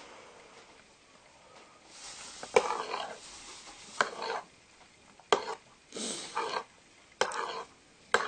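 Eating soup: a spoon clinks against the bowl and each spoonful is slurped, about five times at intervals of roughly a second and a half, starting about two seconds in.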